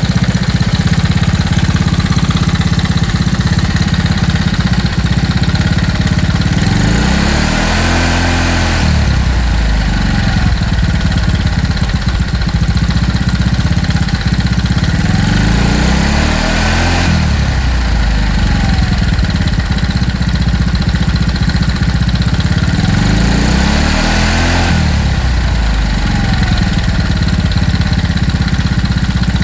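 Old scooter engine idling steadily and being revved three times, each rev rising and falling back to idle.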